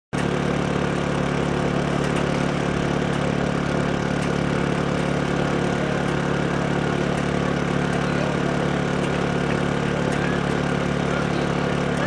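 Steady low motor hum, running evenly without change, over a broad noisy haze.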